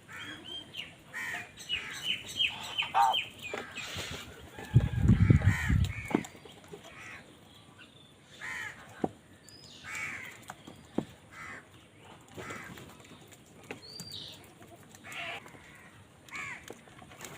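Crows cawing repeatedly, many short harsh calls one after another. About five seconds in, a loud low rumble lasts roughly a second.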